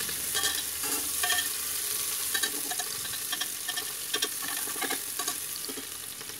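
Sliced onions and green chillies sizzling in hot mustard oil in a pressure cooker over high heat, stirred with a metal spoon that scrapes and taps against the pot again and again.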